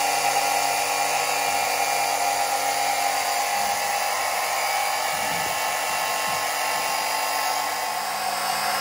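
An 80 W 12-volt electric oil-change pump running with a steady whine as it sucks warm engine oil out through the dipstick tube of an inboard engine.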